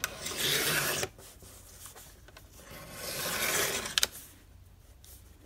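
Cutterpillar Crop paper trimmer with freshly replaced blades: the cutting head slides along its metal rail and slices paper twice, a rasping stroke in the first second and another from about three to four seconds in. The second stroke ends in a couple of sharp clicks.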